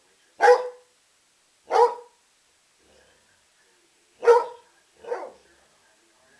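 Catahoula leopard dog barking in play, four short single barks spaced about a second or more apart, the last one softer.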